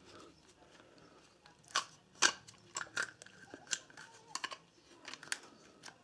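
Light plastic clicks and knocks, irregularly spaced, as a yellow 110V site plug and socket with clear plastic bodies and a hinged lid are handled and turned in the hands.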